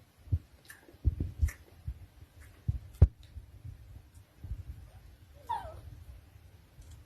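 A dog gives one short falling whine about five and a half seconds in, among soft knocks and thumps and one sharp click.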